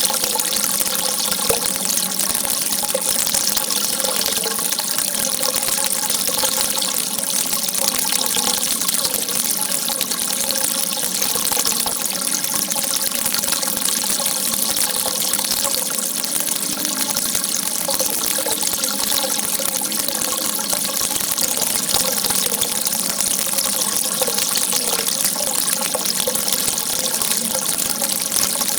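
A stream of water jetting and running steadily, an even, unbroken hiss without pauses.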